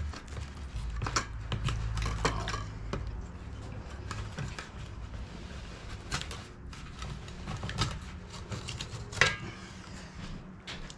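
Filleting knife working a fillet off a Murray cod's backbone on a stainless steel platter: scattered light clicks and scrapes of the blade on bone and metal, over a low steady hum.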